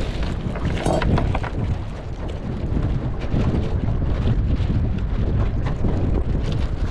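Wind buffeting the microphone out on the water, a steady low rumble, with a few light knocks in the first second or so.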